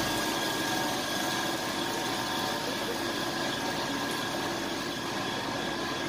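Milk running from the tap of a stainless-steel bulk milk tank into a plastic bucket, over a steady machinery hum.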